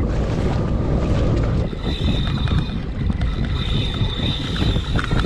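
Wind buffeting the microphone over a jet ski running on choppy sea. About two seconds in, a high steady whine joins, the fishing reel's drag screaming as a hooked fish takes line after a big strike.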